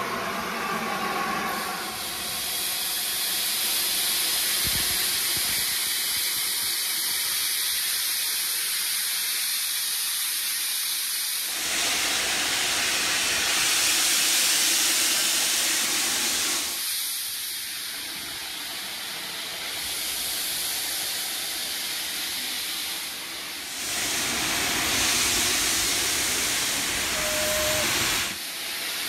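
Steam hissing from a standing LNER A4 Pacific steam locomotive, a continuous hiss that twice swells into a louder, harsher blast lasting several seconds, about twelve seconds in and again near the end.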